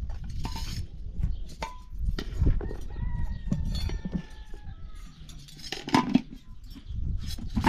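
A rooster crows once, a long call of about a second and a half, among scattered clinks and knocks over a low rumble.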